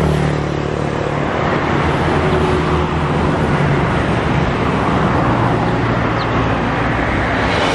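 A motor engine running with a steady low hum, under a broad rushing noise.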